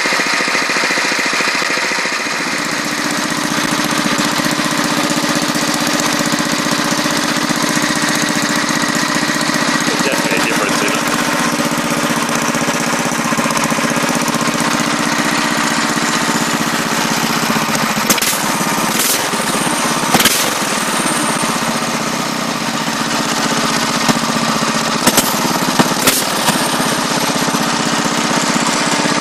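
Small single-cylinder go-kart engine running steadily through a home-made open header pipe, a loud, pulsing exhaust note. The note changes about two seconds in. A few sharp clicks come in the second half.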